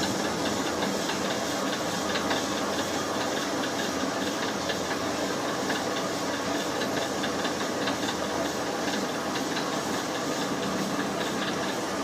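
Machinery running steadily: a dense, even hiss with faint light ticking, holding at one level throughout.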